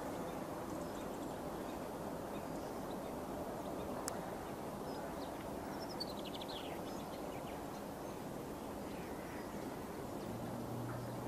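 Outdoor ambience on an open airfield edge: a steady low rumble of wind and distant aircraft, with a short run of high bird chirps around the middle. A low steady hum comes in near the end.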